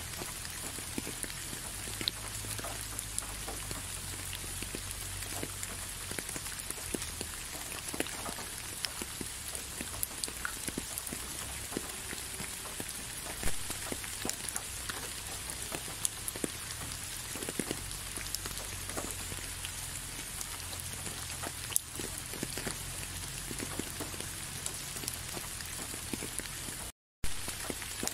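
Steady rain falling, an even hiss with scattered individual drops ticking close by. It cuts out for a moment near the end.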